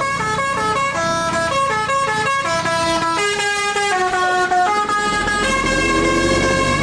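An Osman Bey tour bus's "telolet basuri" musical horn plays a fast tune of short notes jumping in pitch, then holds longer notes from about five seconds in.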